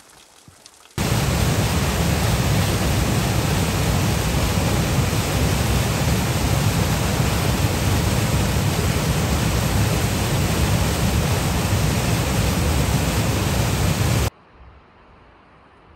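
Loud, steady rushing noise that starts suddenly about a second in and cuts off abruptly near the end.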